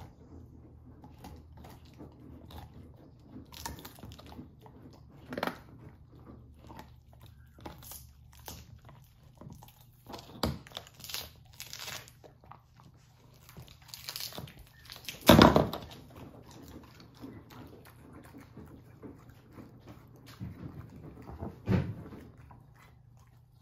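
Great Pyrenees puppy gnawing a huge bone, its teeth scraping and crunching in scattered bursts, the loudest about fifteen seconds in.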